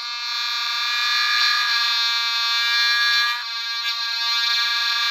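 A toy sports sound-effect machine plays a long, steady electronic buzzer tone through its small speaker, with a brief dip in level about three and a half seconds in.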